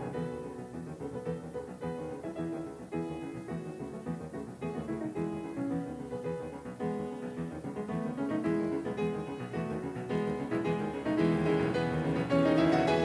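Background music led by piano, with rippling runs of notes that swell louder near the end.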